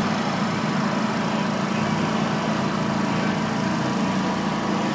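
Riding lawnmower engine running at a steady speed with an even hum.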